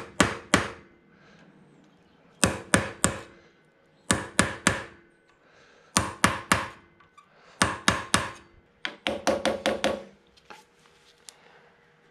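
Hammer striking a steel pin punch set against the cone washers on an old Land Cruiser's front steering knuckle studs, knocking the washers loose: sharp metal taps in groups of three about a second and a half apart, then a quicker run of about eight taps near the end, with a faint metallic ring.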